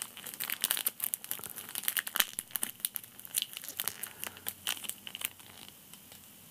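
Plastic Haribo sweet bag crinkling as it is handled and folded, an irregular run of crackles that dies down about five seconds in.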